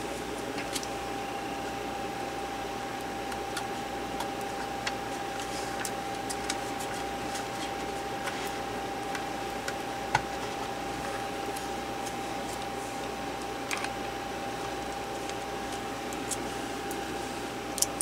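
Small, light clicks and taps of a laptop hard-drive flex cable and its connectors being handled and pressed into place, scattered and faint, with a couple of sharper clicks about halfway through and near the end, over a steady background hiss and a thin steady tone.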